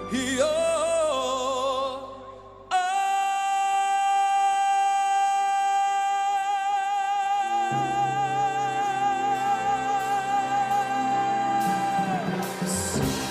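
Male pop singer singing live with backing music: a short phrase with wide vibrato, then one long high note belted and held for about nine seconds. Low accompaniment swells in under the held note about halfway through, and the note ends shortly before the close.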